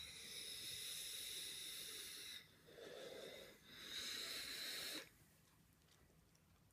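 Faint airy hiss of a draw through an e-cigarette with an Aspire tank, with a thin whistle-like band from the airflow. It comes in two pulls, the first about two and a half seconds long and the second about a second, with a softer breath between them.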